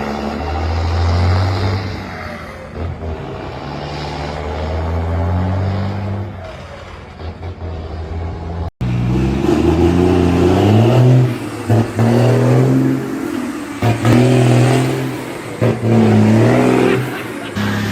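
Iveco truck diesel engines running under acceleration. After a brief break about nine seconds in, the engine note climbs and drops back again and again, about every second and a half, as the truck shifts up through its gears.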